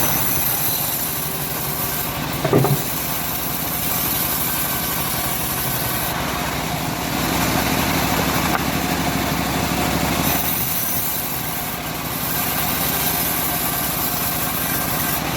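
Homemade engine-driven bandsaw mill running steadily while sawing teak, its high hiss fading and coming back a few times. A single loud knock about two and a half seconds in.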